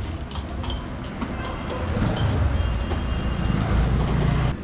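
Low rumble of road traffic, with a heavy vehicle passing close that grows louder about two seconds in; the sound cuts off abruptly near the end.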